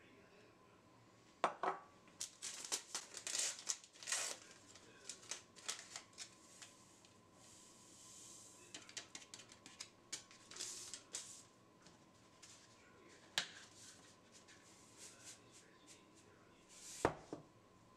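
A vanilla sugar sachet crinkling in the hand and being torn open with crackly rustles, then the sugar poured from it into a glass mixing bowl with a soft hiss. Scattered small clicks of handling follow, and a single knock near the end.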